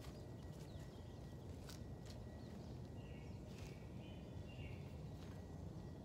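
Faint outdoor morning ambience: a low steady rumble with a few soft clicks, and faint bird chirps twice around the middle.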